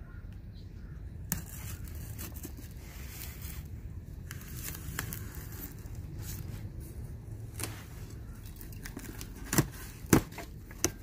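Packing tape and cardboard being cut and torn as a shipping box is opened by hand, with scraping and rustling throughout. Near the end come three short, sharp snaps, the loudest sounds here, as the tape and flaps are pulled free.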